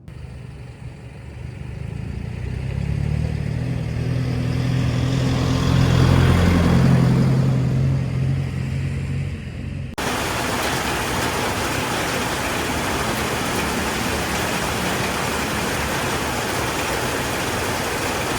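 A motor engine's steady hum that grows louder, is loudest about six to seven seconds in, then eases off. It cuts off suddenly at ten seconds into a steady, even hiss.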